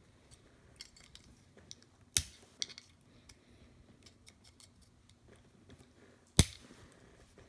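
Small clicks and light ticking of a screwdriver tip working the plastic window pieces out of a 1/64 diecast model car, with two sharp, louder clicks, one about two seconds in and one near the end.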